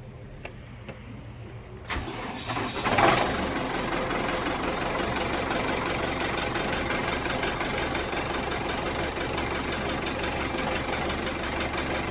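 New Holland TL100 tractor's diesel engine cold-started after glow-plugging. A click just before 2 s, then the starter cranks briefly; the engine catches with a loud burst about three seconds in and settles into a steady idle to warm up.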